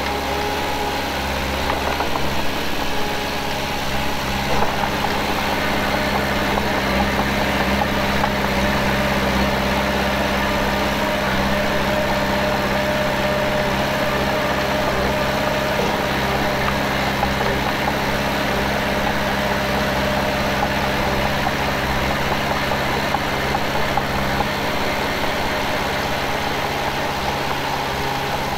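Heavy diesel engine of earthmoving machinery running steadily.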